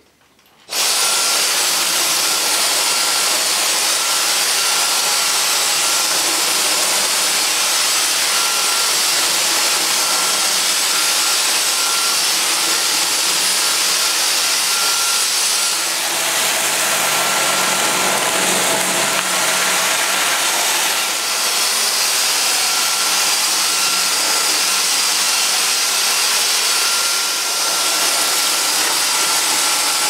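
Dyson DC35 cordless stick vacuum switching on just under a second in and running steadily on its normal power setting: a steady high whine over a rushing hiss as its powered floor head sucks up leftover dry debris from a tiled floor.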